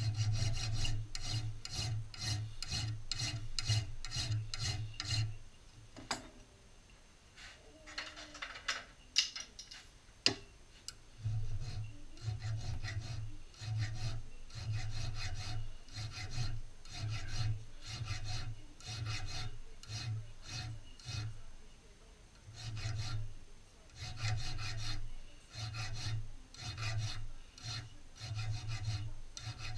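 Flat hand file rasping across the steel of a shotgun part held in a vise, in regular strokes about two a second. The strokes stop for several seconds about five seconds in, with a couple of sharp clicks, then resume, with another short break later.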